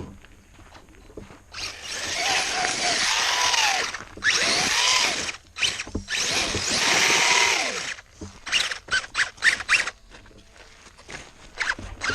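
Electric motor of an RC mud truck whining as the throttle is pushed in three long bursts, its pitch rising and falling, with the wheels spinning through mud. Near the end come a run of short, quick throttle blips.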